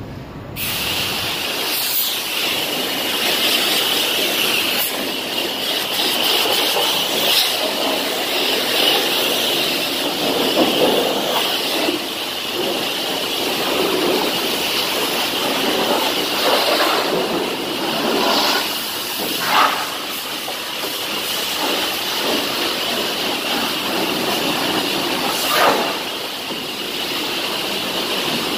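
High-pressure washer wand spraying water onto a semi truck's cab and trailer: a loud, steady hiss of spray that starts about half a second in, with a couple of brief louder surges.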